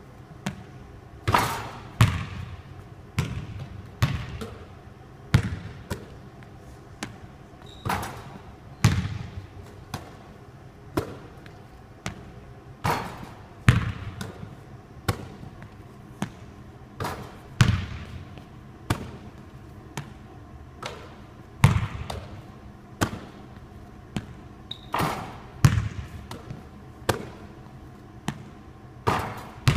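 A basketball thudding again and again on a hard court during a run of three-point shots: sharp impacts at irregular intervals of about a second, some much louder than others.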